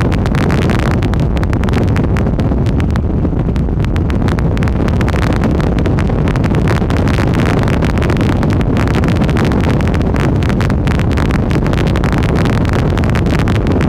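Strong wind buffeting the microphone: a loud, steady low rumble with constant crackling, in the wind near a close tornado.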